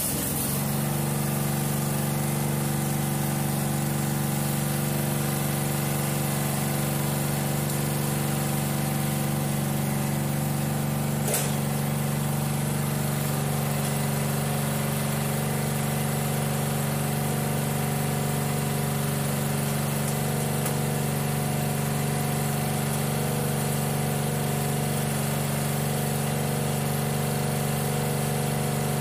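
Simplicity Regent lawn tractor's swapped-in 12 hp Craftsman engine running at a steady speed, with a single sharp click about eleven seconds in. The engine runs unloaded: the tractor's drive belt has slipped off its top pulley, so the tractor does not move.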